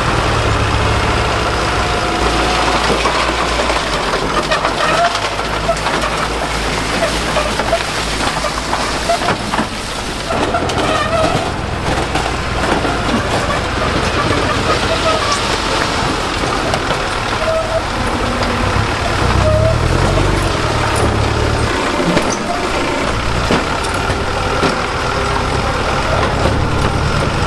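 Diesel engine of heavy construction machinery running steadily under load, its low engine note shifting a couple of times, with short higher-pitched squeaks now and then.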